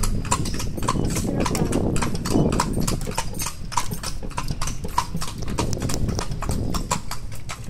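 Shod hooves of a carriage horse clip-clopping on asphalt in a quick, even rhythm of sharp clicks, over the low rumble of the carriage rolling along the road.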